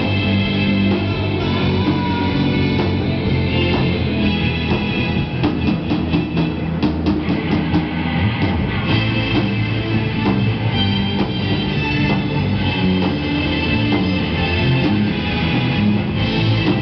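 Live rock band playing with amplified electric guitars and a drum kit.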